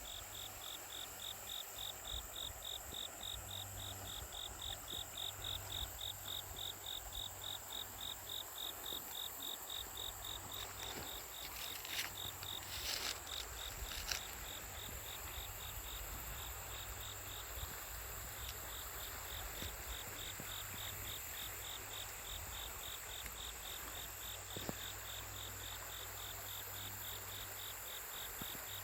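Crickets chirping in fast, even pulses, with a steady higher insect trill behind them. They pause briefly past the middle, then resume. A soft rush of flowing water lies underneath, and a few short sharp sounds come in around the middle.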